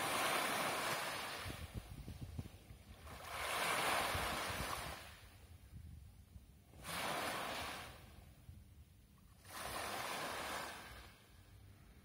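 Small sea waves breaking on a pebble beach, each one a rushing swell of surf followed by a quieter lull as the water drains back through the pebbles. Four waves arrive, roughly every three seconds.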